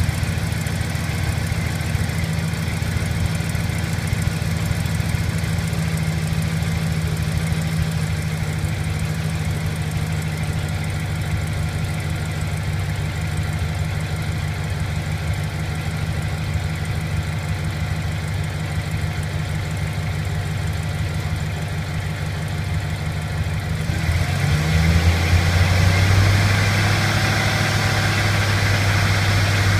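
2008 Chevrolet Silverado's V8 idling steadily shortly after a cold start, with the low-rpm ticking from the left side of the engine that the owner takes for an exhaust leak. About 24 seconds in the sound turns a little louder and deeper.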